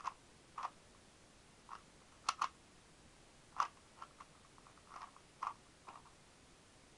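Rubik's speed cube being turned by hand: irregular plastic clicks and clacks as the layers snap round, some in quick runs of several turns.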